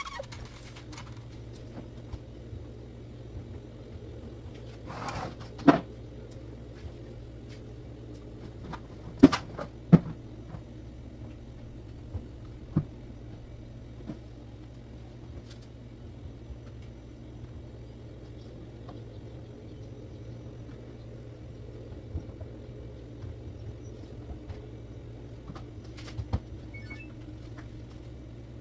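Laundry being sorted by hand into a plastic bin: clothes handled, with a few sharp knocks and clicks scattered through, over a steady low hum.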